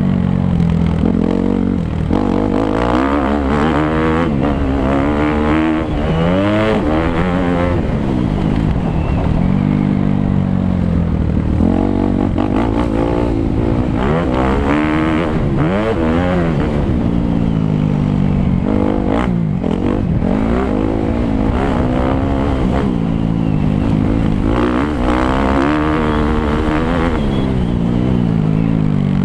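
Suzuki 250 motocross bike's engine being ridden hard, its pitch repeatedly rising as it revs out and dropping back, several times over, through throttle changes and gear shifts.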